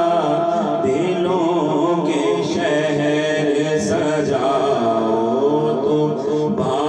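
A man singing an Urdu naat unaccompanied into a microphone, holding long, wavering notes without clear words.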